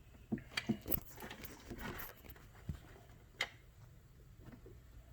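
Small metal screwdriver bits clicking against each other as they are sorted through by hand: a few scattered clicks, the sharpest about a second in and past the three-second mark.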